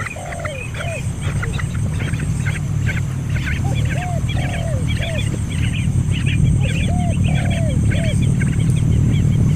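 Birds chirping rapidly and continuously, with a lower arched call repeated about every three seconds, over a low rumble that grows louder.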